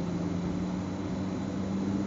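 Electric S-Bahn train running, heard from the driver's cab: a steady rumble of running noise with a low motor hum that rises slowly in pitch.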